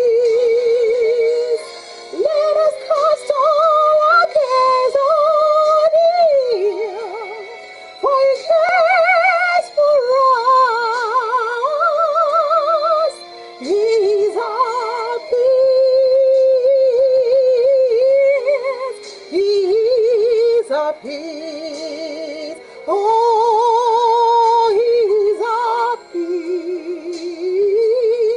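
A woman singing a gospel worship song, one voice with a wide, fast vibrato on long held notes, phrase after phrase.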